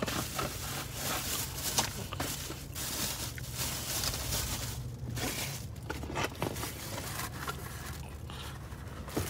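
Rustling and crinkling of food wrapping paper and a plastic carry-out bag being handled, in short irregular scrapes over a steady low hum.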